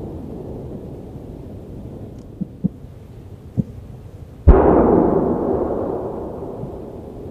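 Fireworks: a low rumble with a few small pops, then one loud boom about four and a half seconds in that rumbles away over the next two seconds.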